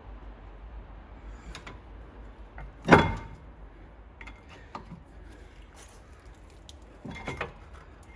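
Metal tools and parts being handled: a few knocks and clinks, the loudest about three seconds in.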